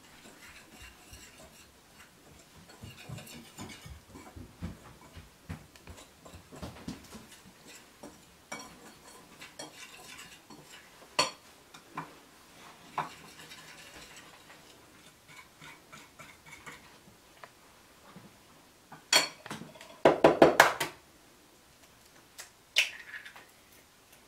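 Wire whisk stirring batter in a ceramic mixing bowl: rapid light scraping and clicking against the bowl. There are a few sharp knocks, and the loudest is a quick cluster of raps about twenty seconds in.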